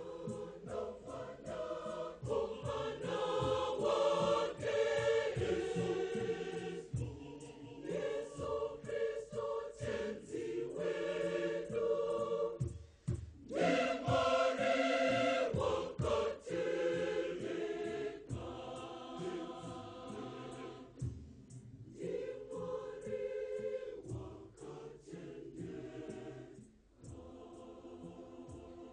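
Large mixed choir singing a Shona Catholic hymn in full harmony, in phrases with brief breaks about 13 and 27 seconds in.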